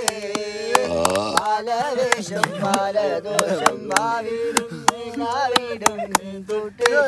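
A man singing a Malayalam song, with hand claps keeping time along with it.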